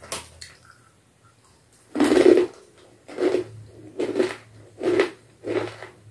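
Crunchy fried murukku being bitten and chewed: a loud first crunch about two seconds in, then a run of crunching chews about one a second.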